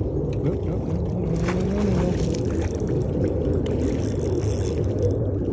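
Steady low rumble of wind buffeting a phone microphone, with a few faint clicks over it.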